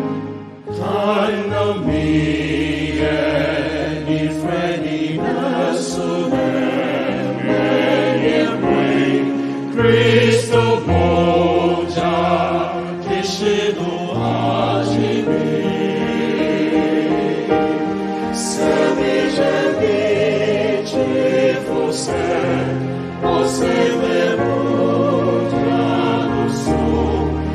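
A small vocal group of men and women singing together into microphones, accompanied by an electronic keyboard, with bass notes changing every couple of seconds.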